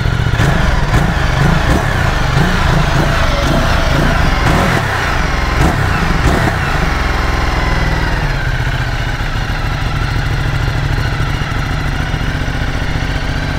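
Ducati Multistrada 1260 Pikes Peak's 1262 cc Testastretta L-twin running steadily through a Termignoni carbon slip-on silencer. The exhaust note is very quiet and lacks the typical twin-cylinder sound, which the owners call the wrong sound for this bike.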